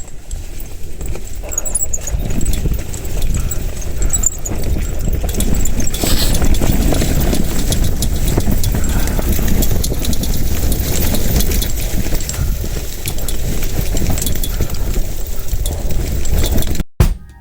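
Strong wind gusting and rumbling on the microphone, with many small clicks through it; it cuts off suddenly near the end.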